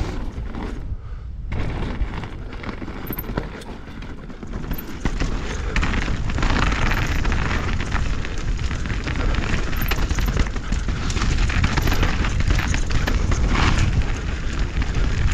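2023 Norco Fluid mountain bike descending a dirt singletrack on a rider-mounted camera: Maxxis Assegai tyres rolling over loose dirt and the bike knocking and rattling over bumps, with wind buffeting the microphone. It gets louder about five seconds in as the speed picks up.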